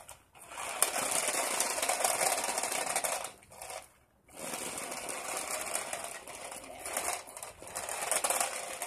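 Small toy RC stunt car's electric motors and gearing whirring and rattling as it drives over concrete, cutting out briefly twice: just after the start and about four seconds in.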